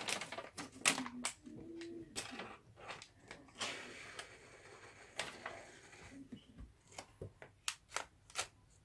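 Irregular light clicks and taps with rustling from hand work at a window frame, and a fleece sleeve brushing close to the microphone.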